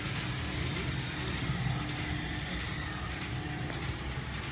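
Haitian XL200 rollover car wash machine running over a car, its rotating brushes scrubbing the body over a steady motor hum. A high hiss fades away over the first second.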